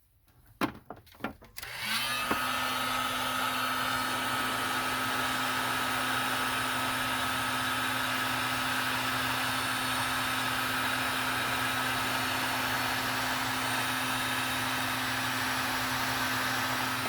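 Electric heat gun clicked on about two seconds in, after a few knocks of handling, then running steadily with a whine from its fan, blowing hot air to shrink the sleeves of crimped butt connectors.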